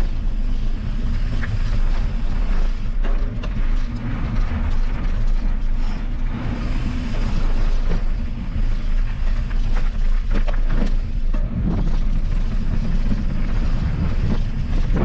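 Mountain bike being ridden on a trail: a heavy wind rumble on the microphone over tyre noise, with scattered clicks and rattles from the bike.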